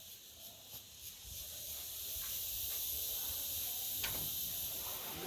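Steady high-pitched hiss of forest insects, growing louder about two seconds in, with a few faint clicks.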